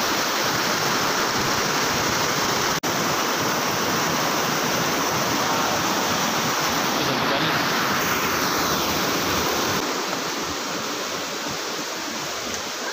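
Rushing water of a swollen hill stream spilling over rocks as a small waterfall: a steady, even rush that eases slightly near the end.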